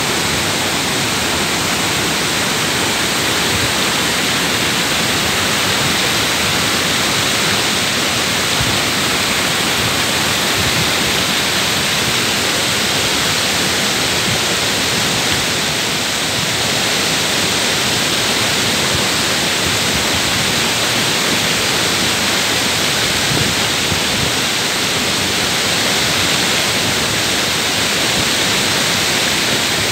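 Waterfall cascading down steep rock faces: a loud, steady rush of falling water that never lets up.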